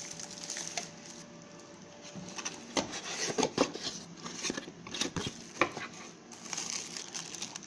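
Light clicks and taps of a boxed TV box and its accessories being handled, starting a few seconds in and coming irregularly.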